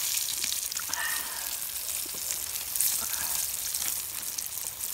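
Flour-breaded smelts frying in hot canola oil in a skillet: a steady sizzle with fine crackling.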